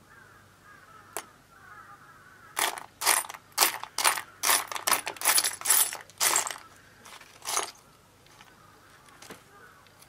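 Small metal lighter parts clinking and rattling against each other as a hand sifts through a drawerful of them: one click about a second in, then about a dozen quick jingly clatters over roughly five seconds.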